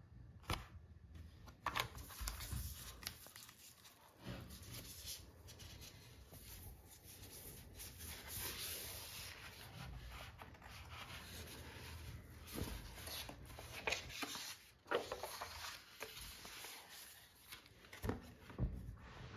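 Hands handling a cardboard box, its paper insert and a screen protector sheet: uneven rustling, sliding and rubbing, with a few sharp taps and clicks.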